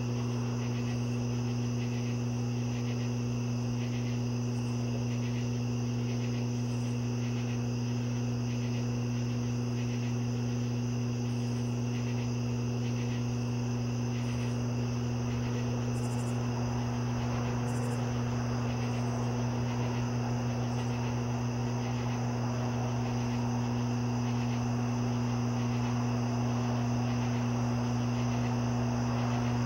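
Crickets chirping in a regular rhythm, with a steady high insect trill, over a loud steady low hum.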